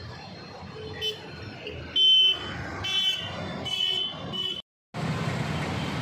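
Road traffic with vehicle horns tooting several times, the loudest about two seconds in. Just before the end the sound cuts out for a moment, then a steady rushing noise of flood water pouring through the barrage takes over.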